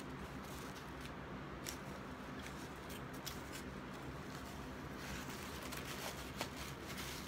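Someone chewing food with scattered short clicks and crackles from handling the food and its cardboard boxes and packaging, over a steady low hum.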